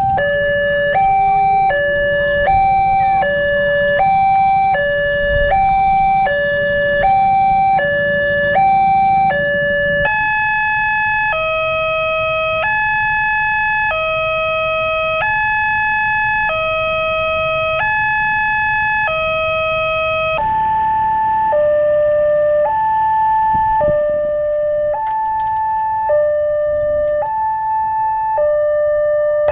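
Electronic two-tone warning siren of a railway level crossing, alternating steadily between a lower and a higher tone. The pattern changes twice: a quick alternation of about one cycle a second at first, then slower, differently pitched tone pairs from about a third of the way in, and another pair from about two thirds in. A low rumble runs under the first part.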